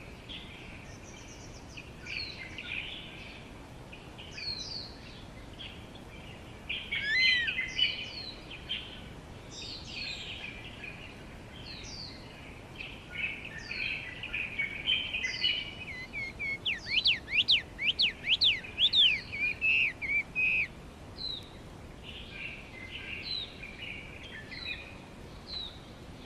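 Small songbirds chirping and whistling, short notes scattered throughout, with a burst of rapid, sharp up-and-down sweeping notes about two-thirds of the way through.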